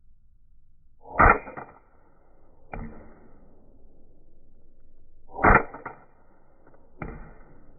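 Walther PPK replica CO2 BB pistol fired twice, about four seconds apart: two sharp pops, each followed about a second and a half later by a softer knock.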